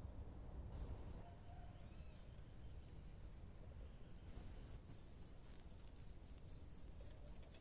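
Forest ambience over a steady low rumble. A few short, high bird chirps come first. From about four seconds in, a very high pulsing sets in, repeating about three times a second.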